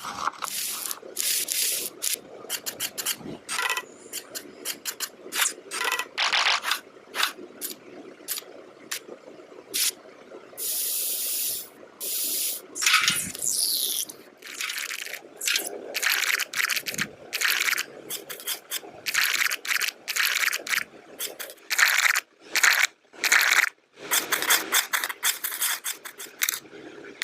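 Hands working small model-building materials: many short scrapes, rubs and clicks, irregular and separated by brief pauses, with a steady hiss lasting about a second and a half a little before the middle.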